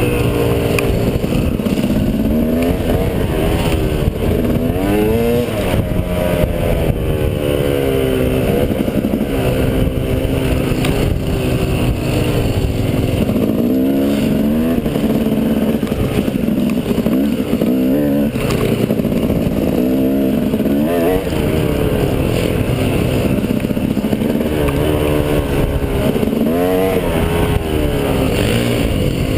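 Off-road dirt bike engine under way on a trail, its pitch rising and falling over and over as the throttle is opened and closed and gears change.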